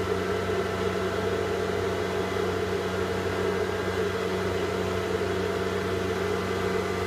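iBeLink ASIC Dash miner's high-speed cooling fan running, quite loud: a steady whoosh with a low hum and a few steady tones.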